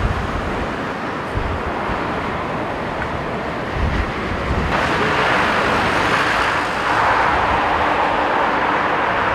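Strong wind buffeting the microphone in gusts, with a jet airliner's engine noise that swells louder about five seconds in and stays high.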